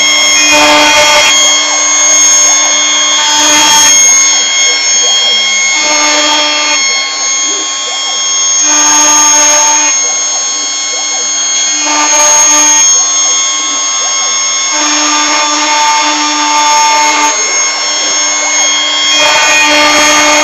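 CNC router spindle running with a steady high whine while the cutter engraves an aluminium plate; the cutting noise swells for about a second roughly every three seconds as the tool works along its passes.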